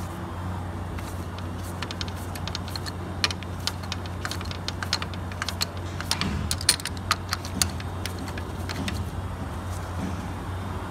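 Irregular metallic clicks and clinks of a hand socket ratchet and socket working the engine mount bolts, busiest about six to eight seconds in, over a steady low hum.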